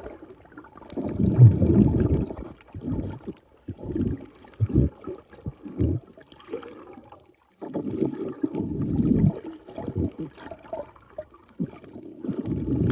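Muffled water sloshing and gurgling against a phone filming underwater, coming in irregular low surges with short quiet gaps.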